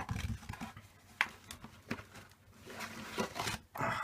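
A crumpled cardboard box being opened and handled: scattered rustles, scrapes and clicks, with a sharp tick about a second in and a longer rustle near the end.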